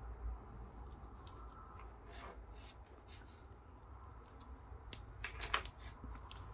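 Light clicks and rattles of small metal-and-plastic multimeter test-lead attachments being handled and pushed onto a test probe, with a cluster of clicks a couple of seconds in and a louder cluster near the end.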